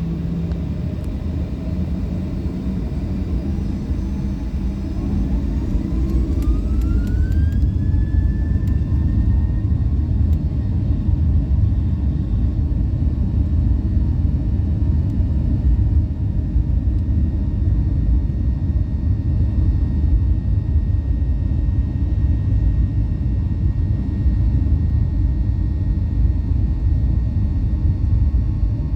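Boeing 737-800's CFM56 jet engines heard from the cabin, spooling up with a rising whine that settles into a steady high tone, over a loud, steady rumble. This is the build-up to takeoff thrust and the takeoff roll.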